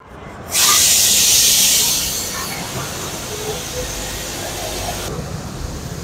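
A loud hiss starts suddenly about half a second in and slowly fades over the next few seconds.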